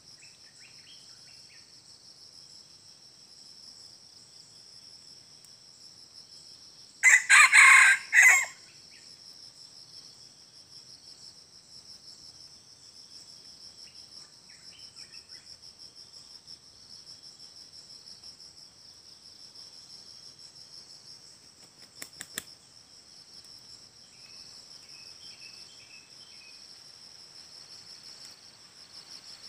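A junglefowl rooster crows once, a short crow of about a second and a half, over a steady high-pitched insect chorus. A couple of sharp clicks sound later on.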